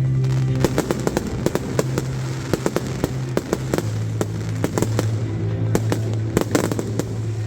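Fireworks going off: an irregular, rapid series of sharp bangs and crackling reports.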